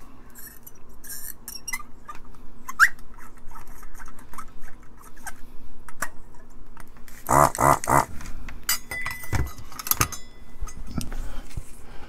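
Thin metal cleaning rod scraping and clicking as it is pushed through the nozzle of a Hakko FR-300 desoldering tool, clearing out solder. There is a brief squeak about three seconds in, and a louder, rough pitched noise lasting about a second around seven seconds in.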